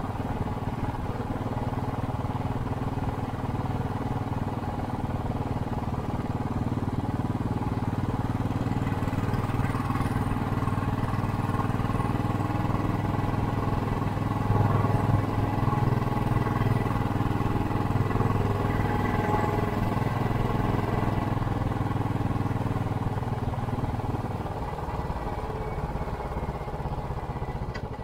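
Royal Enfield Classic 500's single-cylinder four-stroke engine running under way through a Hitchcock's aftermarket silencer, a steady exhaust note. It grows a little louder about halfway through and eases off near the end.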